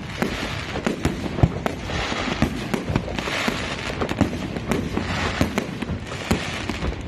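Fireworks display going off: a rapid, continuous run of bangs and pops, with a swell of crackling every second or so.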